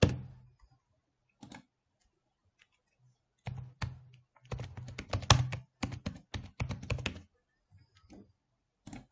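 Typing on a computer keyboard: a sharp click at the start and another a second and a half later, then a quick run of keystrokes between about three and a half and seven seconds in, and a few scattered clicks near the end.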